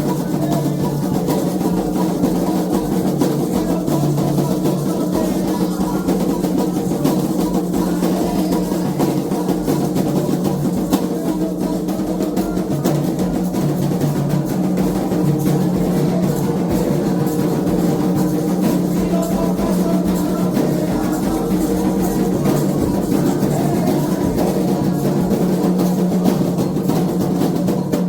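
Candomblé ritual drumming on atabaque hand drums, a continuous fast rhythm of dense strokes that keeps an even level throughout.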